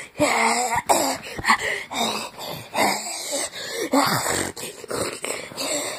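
A person's voice making a string of short wordless vocal sounds, breathy, rising and falling in pitch.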